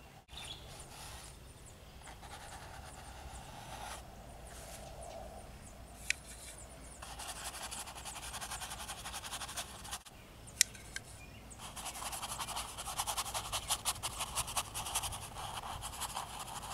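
Paintbrush scrubbing black oil paint onto the painting panel: a scratchy hiss that comes and goes with the strokes and turns into quick back-and-forth scrubbing about twelve seconds in. Two sharp ticks stand out along the way.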